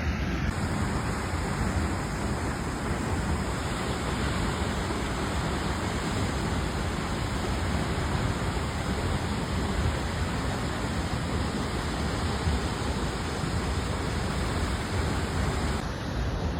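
Waterfall rushing, a dense steady noise of falling water.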